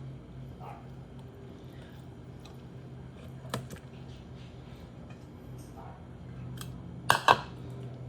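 Kitchen handling sounds from butchering a whole chicken: a click about halfway through and two sharp knocks in quick succession near the end, over a steady low hum.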